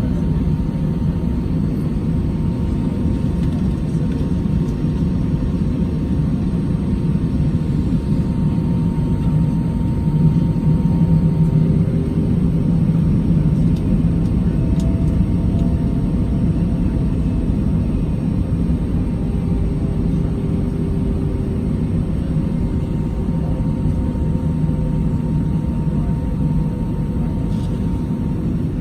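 Steady cabin noise inside an Airbus A319 airliner on the ground before takeoff: a low engine and airflow rumble with a faint steady whine above it.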